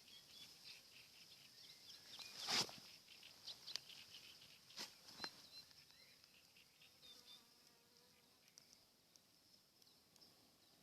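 Quiet scene with scattered small clicks and rustles of dry grass being handled and packed around smouldering tinder, and a brief louder noise about two and a half seconds in, over a faint steady high-pitched insect buzz.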